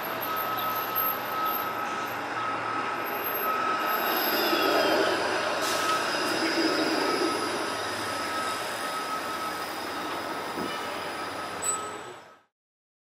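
Toronto Flexity Outlook low-floor streetcar approaching and passing close by, its running noise on the rails swelling to a peak about four to seven seconds in, with a thin high squeal from the wheels as it goes by and a steady high tone underneath. The sound cuts off suddenly near the end.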